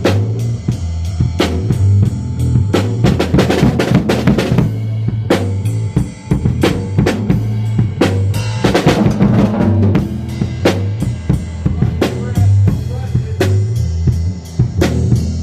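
Drum beat with kick and snare over a bass line, with busier runs of quick hits a few seconds in and again past the middle.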